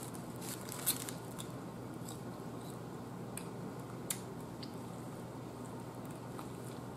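Quiet eating sounds of a sub sandwich being handled and bitten into: faint chewing and small mouth and bread noises, with two sharp clicks, one about a second in and one about four seconds in, over a steady low hiss.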